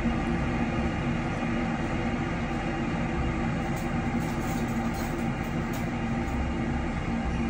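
Steady mechanical hum with an even rushing noise, unchanging throughout.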